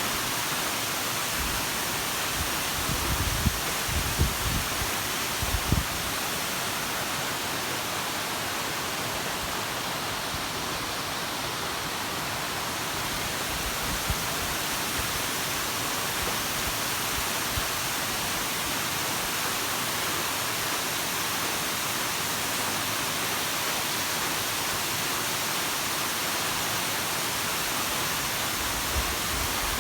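Water of Ryūzu Falls rushing and cascading in a steady, even roar of white water, with a few brief low bumps on the microphone in the first several seconds.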